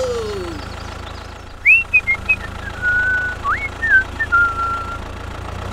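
Steady low engine-like hum of the toy tractor, with a run of whistled notes over it from about two seconds in: quick upward sweeps, each followed by a short held tone.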